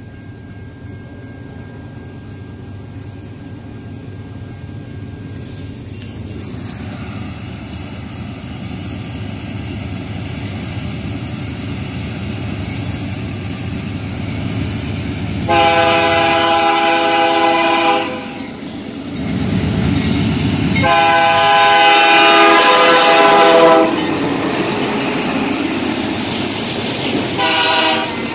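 Approaching BNSF freight train's diesel locomotives, their rumble building steadily louder. The lead unit then sounds its multi-chime air horn: two long blasts and a short one, the opening of the long-long-short-long grade-crossing signal, as the locomotives pass close by.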